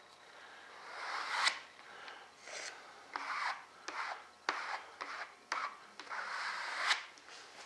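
Yellow plastic spreader scraping across a fiberglass-covered wooden panel wet with resin, in a series of irregular strokes, several ending with a sharp scrape. It is taking off the excess resin after a fill coat for the pinholes.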